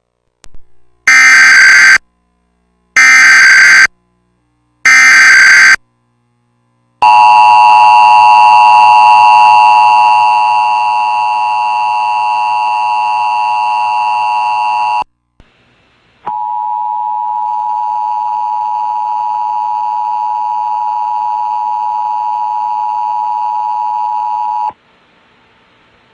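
Emergency Alert System Required Monthly Test tones on a Charter Spectrum cable feed, very loud. First come three short raspy bursts of SAME digital header data about a second apart. Then the steady two-tone EAS attention signal runs for about eight seconds, and after a short gap a quieter single steady tone runs for about eight more.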